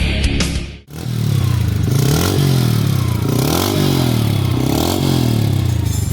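Rock music cuts out about a second in, then a Bajaj Boxer BM 100's single-cylinder four-stroke engine, breathing through an aftermarket stainless-steel full-system exhaust, is revved several times, its pitch rising and falling with each blip of the throttle.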